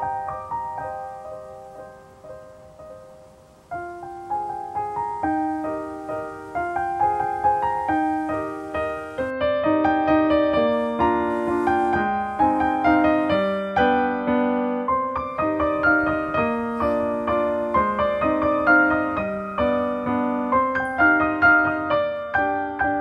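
Solo piano music: a phrase of slow notes fades away, then about four seconds in a louder passage begins, and from about nine seconds in the notes come faster in flowing runs.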